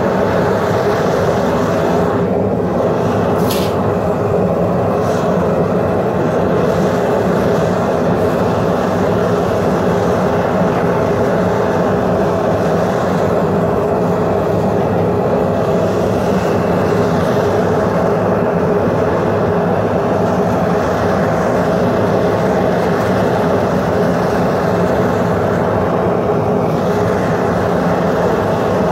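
Propane burner of a Devil Forge FB2M melting furnace running steadily with the lid off.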